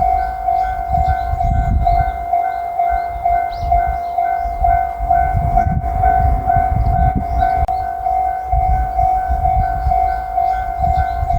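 Japanese level crossing's electronic warning bell ringing in a fast, even ding-ding rhythm, with an uneven low rumble underneath.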